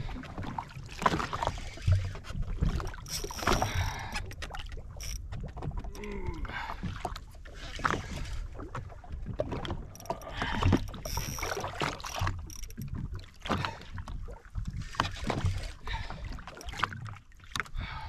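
Electric deep-drop fishing reel grunting and groaning as it winds a fish up under heavy load, with water slapping against the jet ski's hull and wind on the microphone. A brief high whine comes through twice.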